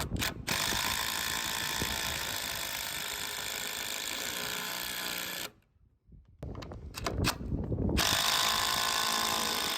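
Cordless DeWalt drill driving a GRK structural screw into a solid oak header, running steadily for about five seconds. It stops briefly, with a few clicks, then runs again as the next screw goes in.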